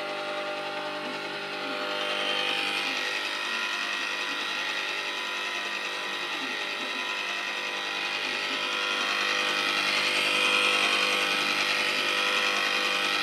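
Andrew James ice cream maker's electric motor running steadily, turning the paddle through the custard mixture in the freezer bowl; the hum grows a little louder about two seconds in and again near the end.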